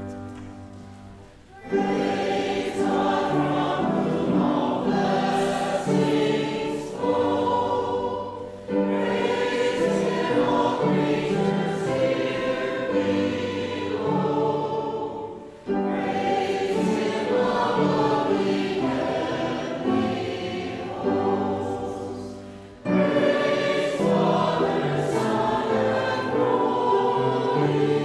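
Church choir singing in phrases of about seven seconds, each entering sharply after a brief fall-off, during the offertory.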